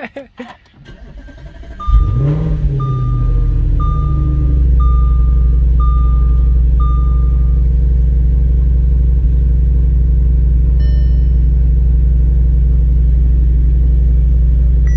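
Audi RS5's 4.2-litre V8 cranks and fires about two seconds in, with a brief rev flare that falls back into a steady idle. This is the first start after new camshaft adjustment solenoids were fitted. A dashboard warning chime beeps six times as the engine catches.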